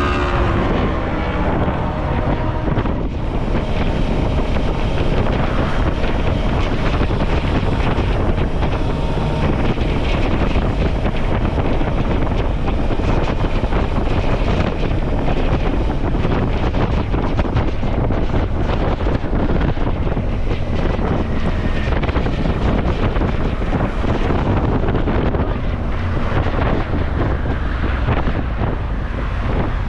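Riding wind buffeting the microphone of a Suzuki V-Strom motorcycle at road speed, with the engine running underneath.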